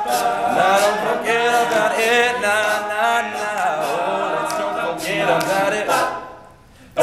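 Male a cappella group singing the closing bars of a pop song in close harmony, with a steady beat of sharp percussive hits under the voices. The final chord dies away about six seconds in.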